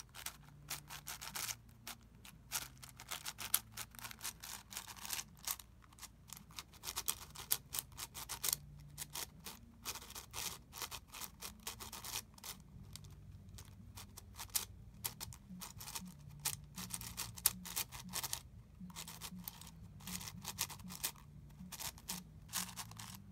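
MGC 7x7 speedcube, unlubricated and dry, having its layers turned by hand: a steady stream of irregular plastic clicks and clacks as the turns snap into place.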